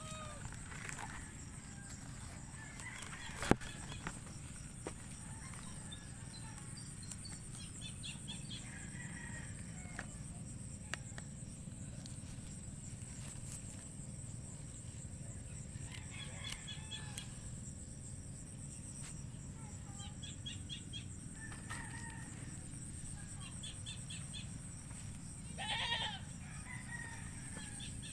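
Chickens calling intermittently in the background, with a louder call near the end, over a steady high-pitched buzz. A single sharp click comes a few seconds in.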